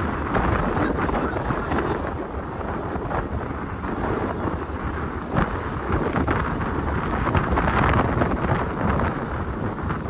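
Wind buffeting the microphone on a moving sightseeing boat, in frequent gusts over the boat's steady low rumble.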